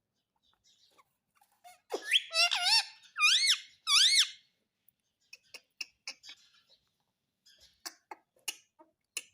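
Rose-ringed (Indian ringneck) parakeet giving a run of high, squeaky calls about two seconds in, each dipping and rising in pitch. These are followed by a few seconds of faint, scattered clicks.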